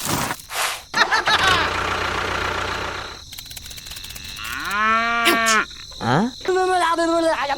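Cattle mooing: several drawn-out moos in the second half, after about two seconds of rushing noise near the start.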